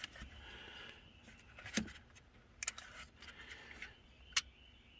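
Ratchet and long socket extension working a coil pack hold-down bolt: a few separate sharp metallic clicks with light scraping between them.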